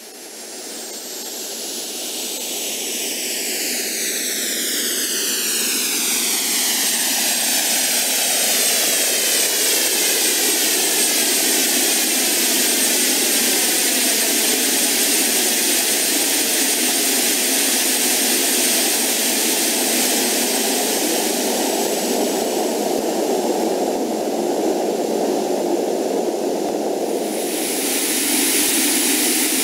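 Jet airliner engines: a rushing noise with a thin, steady high turbine whine, swelling up from silence over the first several seconds while falling sweeps in pitch run through it. Near the end the noise brightens and the whine jumps higher.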